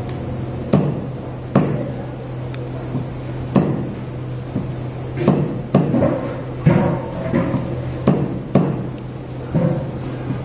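Large knife chopping a rohu fish into chunks on a wooden block: about a dozen sharp chops at an uneven pace, over a steady low hum.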